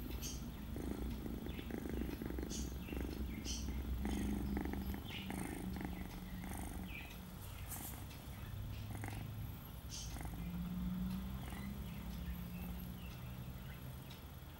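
Domestic cat purring steadily up close while kittens nurse, with scattered small clicks over the purr.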